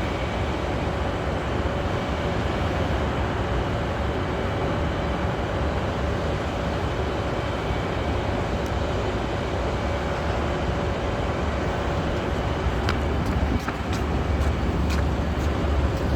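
Steady low engine rumble with a faint constant whine, as of a crane's engine running while it holds and lowers a rooftop HVAC unit. A few light clicks come near the end.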